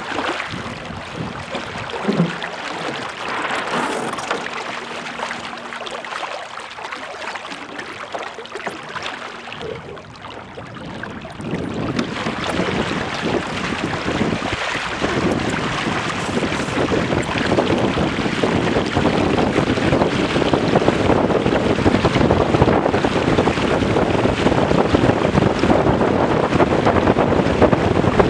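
Water rushing and splashing along the hulls of a Weta trimaran under sail, with wind buffeting the camera microphone. The rush grows louder and denser about a third of the way through and stays loud.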